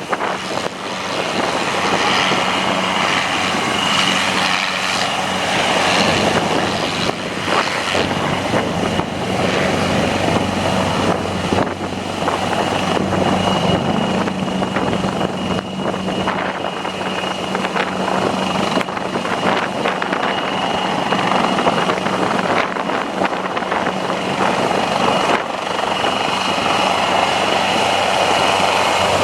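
Helicopter running, a loud steady rotor and engine noise with a high, steady whine.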